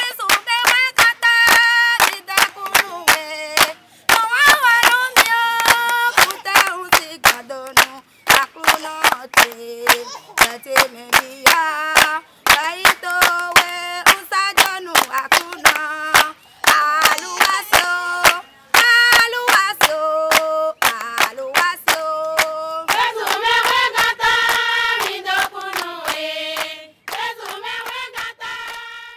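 A group of women singing together in chorus, with steady rhythmic hand-clapping keeping the beat.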